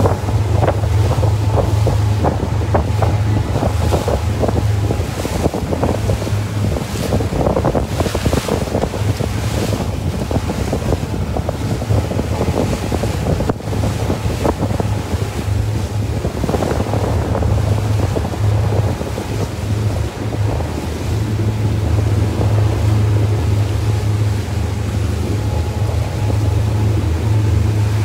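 Small motorboat under way: its engine's steady low hum under water rushing and splashing past the hull, with wind buffeting the microphone throughout.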